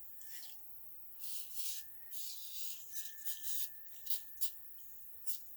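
WD-40 aerosol can spraying in three short hissing spurts onto the chainsaw's starter handle parts as lubricant, followed by a few brief clicks and spurts near the end.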